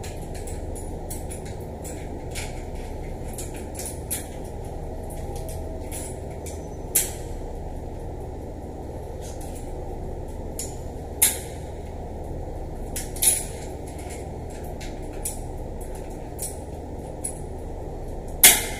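Metal tools clicking and clinking against a brass shower valve as it is worked loose with pliers and a wrench. There are many short sharp clicks, the loudest just before the end, over a steady low hum.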